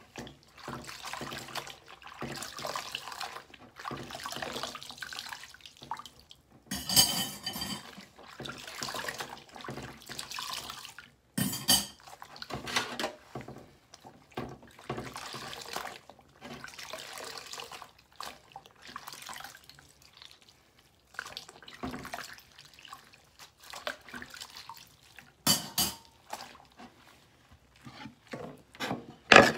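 Dishes being washed by hand in a stainless steel sink: water sloshing and splashing, a cloth scrubbing, and dishes knocking against each other and the sink, with a few sharper clatters now and then.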